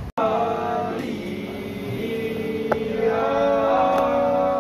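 Voices chanting in long held, slowly sliding notes, a ritual chant, starting abruptly. There is a sharp click a little past halfway.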